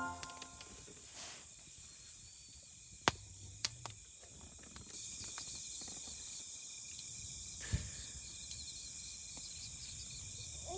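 Insects chirping outdoors: a steady high-pitched drone that grows louder about five seconds in, with a few faint clicks.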